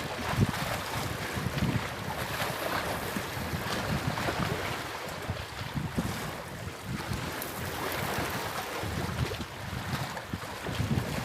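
Wind gusting on the microphone in uneven low rumbles over a steady rushing wash of water.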